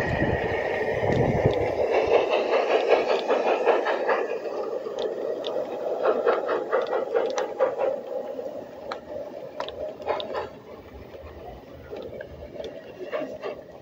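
LGB G-scale model train rolling past on garden track: a steady rumble of wheels and motor, loudest in the first few seconds and fading as it goes by, with scattered sharp clicks from the wheels on the rails.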